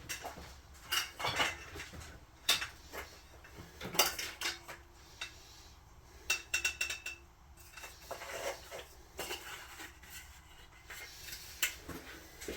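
Hard objects being handled and set down, clattering in separate clicks and knocks, with a quick run of rattling clicks about six seconds in.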